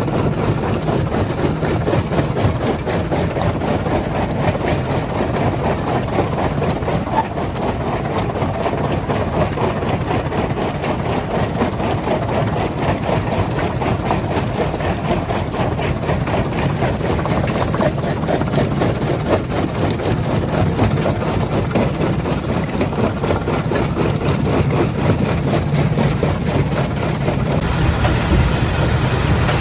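Heavy machinery running steadily, a dense, even engine-and-machine noise, a little louder and lower near the end.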